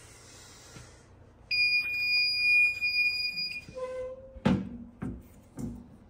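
Electronic fire alarm tone: one steady, loud, high-pitched sound lasting about two seconds, followed by a brief lower tone. A few sharp knocks come near the end.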